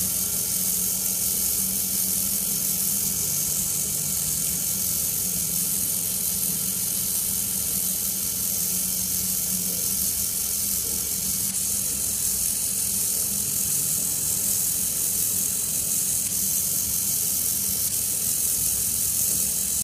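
Hextronik HXT900 micro servo running continuously, a steady whir of its small motor and plastic gear train with a fixed hum and a hiss above it.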